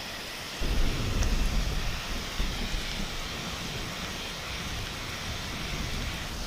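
Heavy rain falling steadily, with a low rumble of thunder that breaks in about half a second in, is loudest over the next second and then rolls on more softly.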